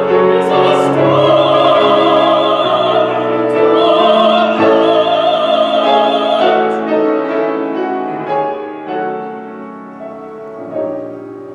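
Mezzo-soprano and tenor singing a duet in classical style with vibrato, accompanied by piano. The sound grows quieter over the last few seconds as the piano carries on.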